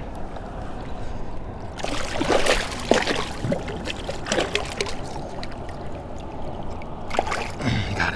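Hooked striped bass thrashing and splashing at the water's surface as it is drawn in against the rocks: a run of splashes starting about two seconds in, easing off, then another bunch near the end, over a steady low rumble.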